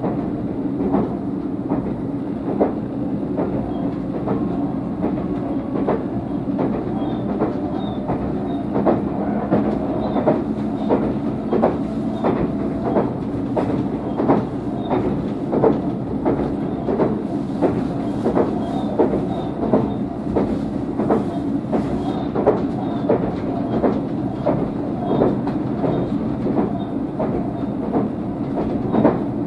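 Tobu 500 series Revaty electric train running at speed, heard inside the passenger car: a steady low rumble with frequent sharp clicks of the wheels passing over rail joints.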